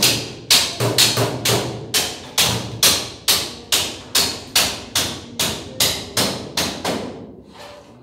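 A quick series of sharp knocks, about two to three a second, each ringing briefly, stopping about seven seconds in, like hammer strikes on the ceiling work.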